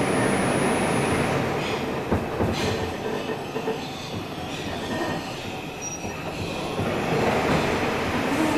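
Bombardier R142 subway car running through a tunnel, heard from inside the car: a steady rumble of wheels on rail that eases off in the middle and builds again near the end, with a few brief, faint wheel squeals.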